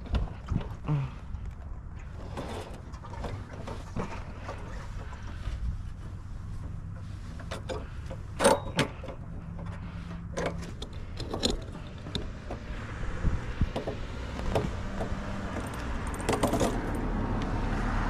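Metal jangling and clinking of a mini bike's roller chain being handled after it came off the sprocket, with scattered clicks and one sharp clack about eight and a half seconds in.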